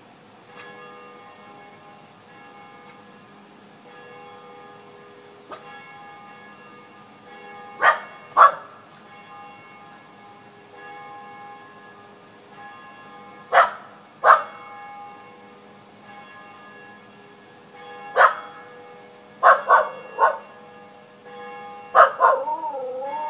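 Church bells ringing steadily in the distance while a Welsh Terrier barks: two loud barks about 8 s in, two more about 14 s in, then a quick run of barks from about 18 to 22 s. Right at the end the dog starts to howl along with the bells, its pitch wavering.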